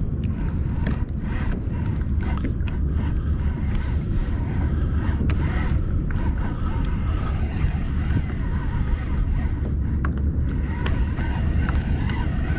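Wind buffeting the camera's microphone as a steady low rumble, over water splashing around a kayak on the open sea.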